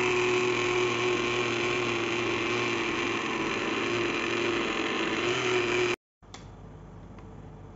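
Electric blender motor running steadily, churning mango pieces with custard and fresh cream in its glass jug, then cutting off abruptly about six seconds in, leaving a quiet room with a faint click.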